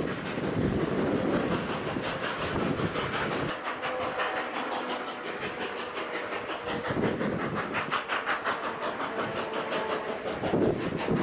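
Narrow-gauge steam locomotive working upgrade: its exhaust beats in a quick, even rhythm of about four to five chuffs a second, with steam hiss and the clatter of the train. A heavy low rumble underneath drops away about three and a half seconds in.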